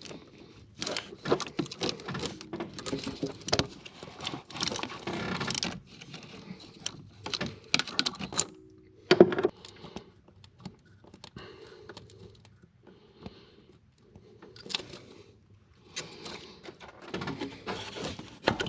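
Metal hand tools clicking and clinking in irregular bursts as a bolt is worked loose in the engine bay, with one sharp knock about nine seconds in.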